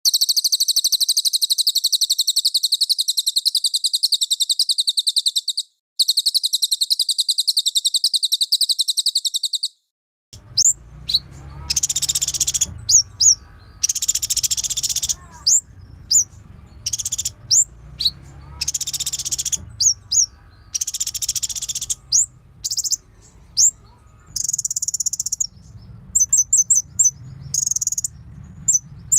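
Songbird recording of cililin and konin singing loudly. It opens with a very fast, high buzzy trill in two long runs with a brief break. After a short pause comes a varied song of sharp sweeping chirps and whistles alternating with buzzy trills, over a faint low hum.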